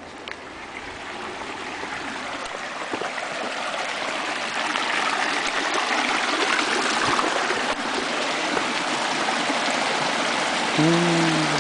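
Water rushing and splashing in a water mill's stream channel, growing louder over the first few seconds and then steady.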